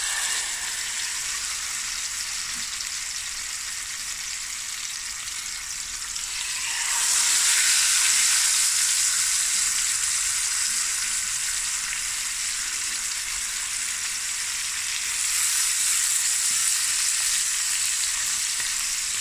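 Whole fish sizzling in hot butter and oil in a stainless steel pan, a steady hiss. The sizzle jumps louder about seven seconds in as a second fish goes into the pan, and rises again near the end as sliced onions are added.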